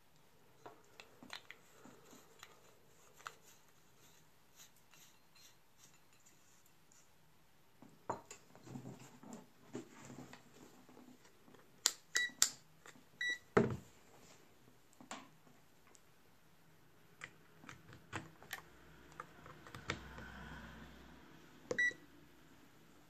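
Meterk MK01A digital multimeter giving short high beeps as its rotary dial is turned and its SELECT button pressed: a few beeps about halfway through and one more near the end. Small clicks and taps of handling come in between.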